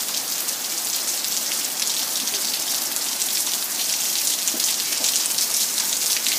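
Heavy rain falling steadily: a dense, even hiss with scattered ticks of nearby drops.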